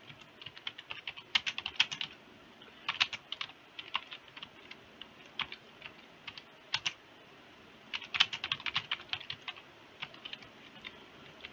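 Typing on a computer keyboard: short runs of quick keystrokes broken by pauses, with the longest, fastest run about two-thirds of the way in.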